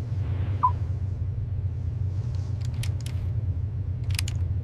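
Steady low rumble of shipboard machinery, with a few sharp clicks in the second half.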